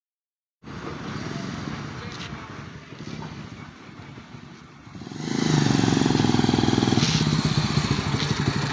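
Motorcycle engine running, starting about half a second in and growing much louder about five seconds in as the bike comes close. Its pitch falls, then it settles into a steady idle.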